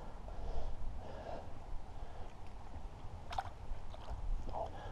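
Water splashing and lapping as a landing net holding a trout is lowered into the lake shallows, with a steady low rumble of wind on the microphone and a couple of short sharp splashes about three and four and a half seconds in.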